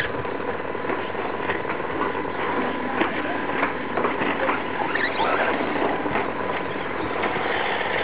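Brushless electric RC short-course trucks racing on dirt: a steady mix of motor and gear whine with tyres scrabbling over the loose track, and scattered ticks from wheels and chassis.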